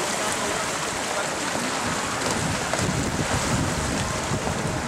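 Steady wind noise buffeting the microphone, with a low rumble strengthening about halfway through, over water sloshing from kayaks being paddled across a pool.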